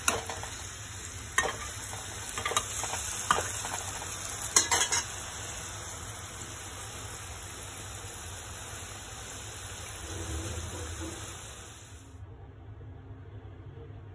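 Metal spatula stirring egg curry simmering in a pan, knocking and scraping against the pan a few times in the first five seconds over a steady sizzle. The sizzle cuts off abruptly about twelve seconds in.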